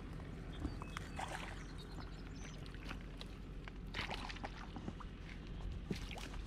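Wind rumbling on the microphone, with intermittent rustling and small clicks of handling, loudest about four seconds in.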